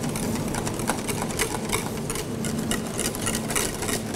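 Wire whisk beating pastry cream in a stainless steel saucepan, the wires ticking rapidly and continuously against the sides and bottom of the pan as the cream is heated to thicken.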